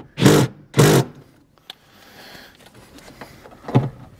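A cordless power driver running a bolt in through a sheet-metal lockbox floor. It gives two short bursts about half a second apart at the start, then a click and another short burst near the end.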